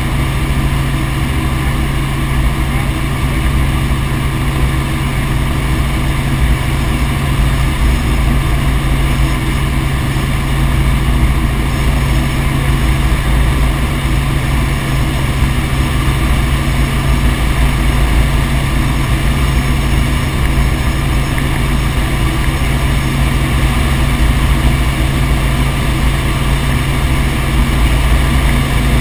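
Helicopter in flight: steady engine and rotor noise, unchanging throughout.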